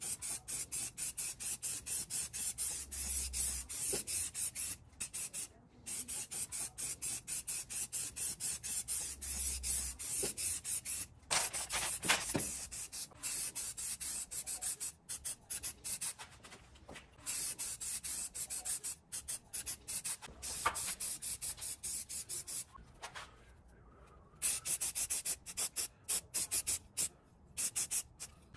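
Aerosol spray paint can hissing in rapid short bursts, about three a second, with a few brief pauses.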